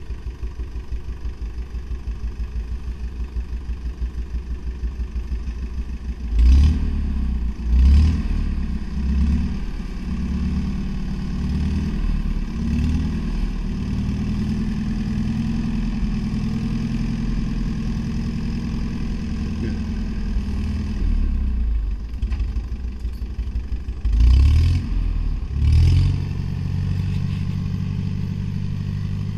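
Fiat 312 R farm tractor engine running with a slow pulsing beat. At about six seconds it is opened up in a few loud surges, then settles into steady running as it works. It surges again twice near the end.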